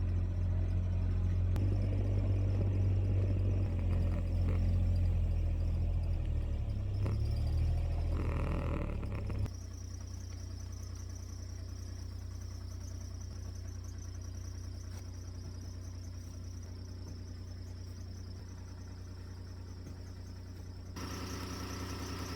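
Low steady rumble of a running vehicle that drops to a quieter hum about nine and a half seconds in, with a steady high-pitched insect trill running over it.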